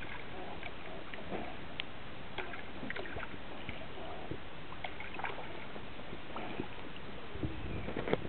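Kayak moving through calm water: a steady hiss of water with small sloshes, drips and clicks along the hull, and a couple of louder knocks near the end.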